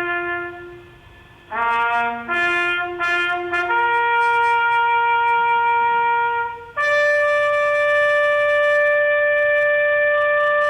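Solo trumpet playing a slow bugle call: a held note, a short quick figure about two seconds in, then two long held notes, each higher than the last, the final one held for several seconds.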